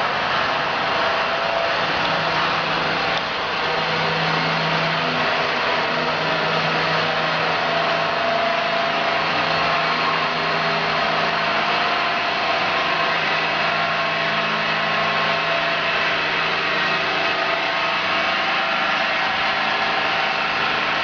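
SAF Matic Productome 6 CNC plasma cutting machine running: a steady hiss with a low hum underneath, holding even throughout.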